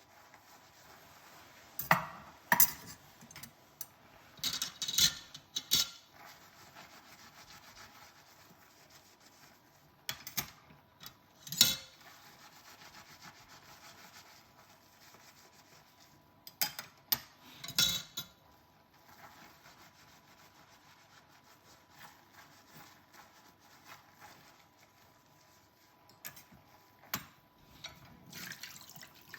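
Dishes being washed by hand: scrubbing and rubbing at a dish with short scrapes and clinks of crockery, coming in a few brief clusters with quiet stretches between.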